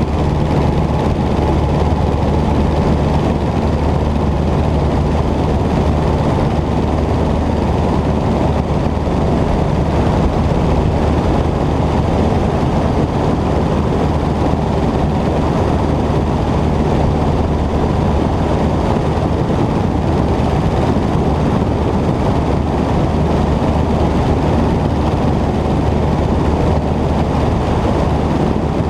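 Cessna 120 light aircraft's engine and propeller running steadily at power, a constant low drone with no change in pitch or level.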